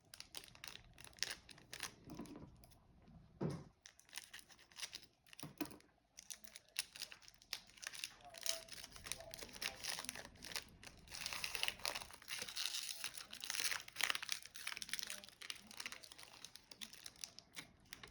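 Plastic foil wrapper of a trading card pack crinkling and tearing as it is opened by hand, a long run of crackles that is densest in the middle, with two soft knocks a few seconds in.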